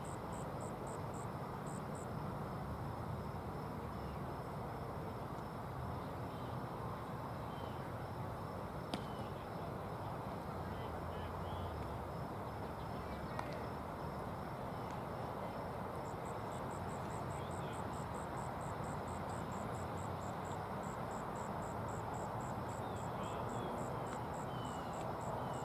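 Outdoor field ambience: insects chirping in even, rapid pulses of about four a second, which fade early and come back past the middle, over a steady hiss of open air. A single sharp knock sounds about nine seconds in.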